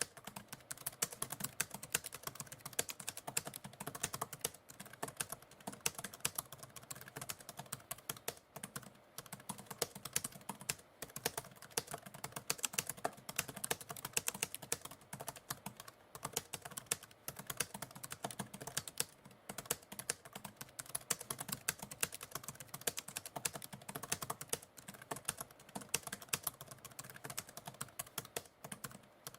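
Typewriter keys being typed continuously: a dense run of sharp key clicks, several a second, with brief pauses now and then.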